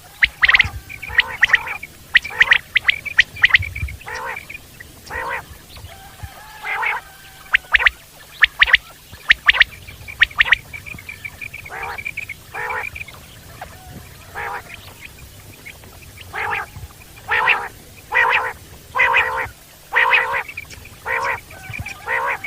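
Common quail (Coturnix coturnix) calling over and over: short, sharp notes in quick groups with brief pauses between them.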